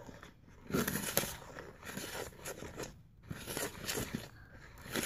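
A spoon stirring glitter into thick pink glue in a bowl: irregular wet scraping strokes against the bowl, picking up about a second in, with a brief pause about three seconds in.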